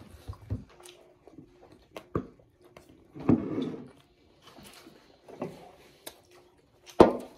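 Close-up eating sounds: chewing and biting with scattered small clicks and smacks, a louder noisy burst about three seconds in and a sharp knock about seven seconds in.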